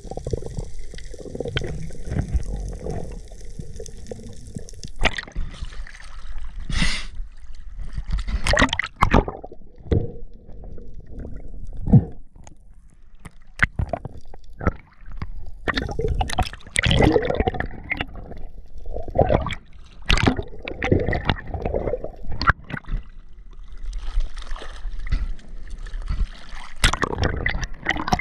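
Sea water gurgling and sloshing, with irregular splashes and knocks.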